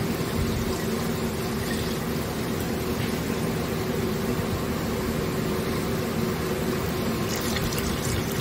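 Pickup truck engine idling steadily while its automatic transmission pumps old fluid out of the torque converter through the cooler line, the red fluid pouring into a plastic jug. A steady engine hum runs under the hiss and splash of the pouring stream.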